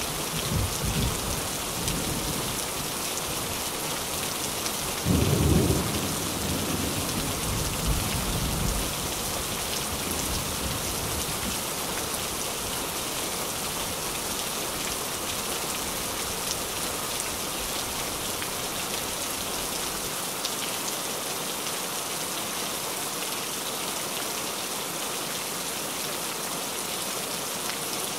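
Steady heavy rain drumming on a metal (tin) roof. Thunder rumbles through the first several seconds, with a louder peal about five seconds in. The thunder then dies away and leaves the rain alone.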